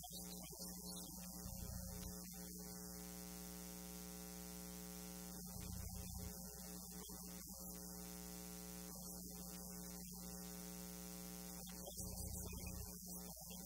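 Steady electrical hum with an even stack of overtones, unchanging throughout.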